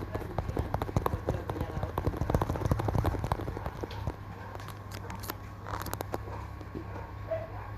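Fingers tapping and clicking in a rapid, irregular patter, dense for about four seconds and then sparser, over a low steady hum.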